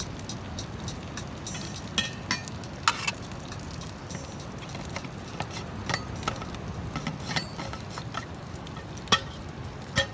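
Campfire burning, its wood crackling with a steady hiss and irregular sharp pops, the loudest a few seconds apart.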